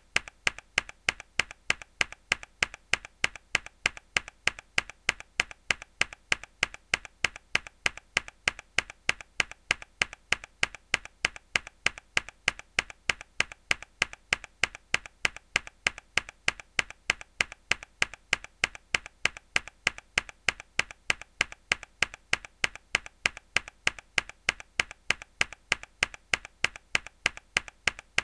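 A single mechanical keyboard key pressed hard, repeated in a steady, even rhythm of about two to three sharp clicks a second. Each loud click is followed by a fainter one.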